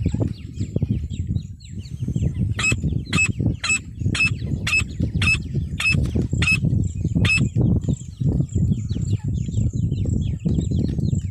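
A female francolin (teetar) giving a series of about nine sharp, evenly spaced calls, roughly two a second, starting a few seconds in. A constant low rumble runs underneath, with many faint high chirps.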